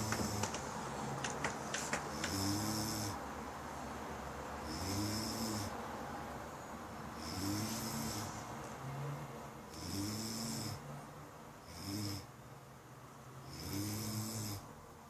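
A person snoring in sleep: about six snores, one every two to two and a half seconds, each a short low pitched rasp with a hiss of breath on top. A few faint clicks sound in the first two seconds.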